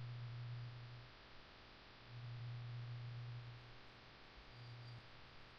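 Low electrical hum that swells and fades three times over a faint steady hiss: background noise of the recording.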